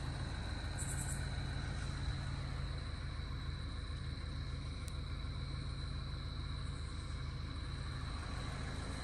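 Steady low rumble of an idling vehicle engine, with a continuous high-pitched insect trill over it.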